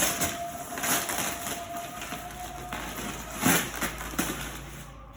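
Gift wrapping and packaging being torn and crinkled by hand: several short crackling, rustling bursts as the wrapping resists opening.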